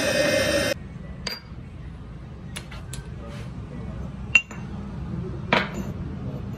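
Metal workshop parts set down one by one on a steel bench: a series of sharp clinks and knocks, the loudest about four and a half and five and a half seconds in. A louder steady sound cuts off suddenly under a second in.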